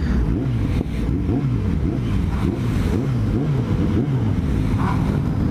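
Motorcycle engines revving, their pitch rising and falling again and again as the throttles are blipped.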